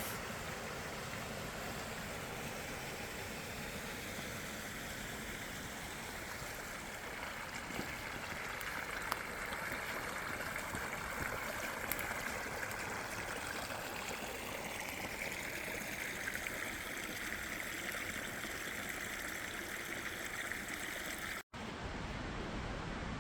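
Stream water flowing steadily, an even rushing and trickling hiss with a brief dropout near the end.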